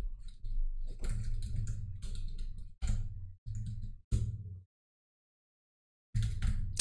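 Typing on a computer keyboard: quick runs of key clicks in short bursts, broken by brief gaps and a silent stretch of about a second and a half near the end.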